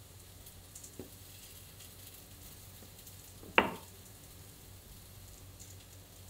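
Soft rustling and handling of a cotton cloth being pulled back from rice in a bamboo steamer, with faint crackles. There is a light knock about a second in and a sharper, louder knock a little past halfway.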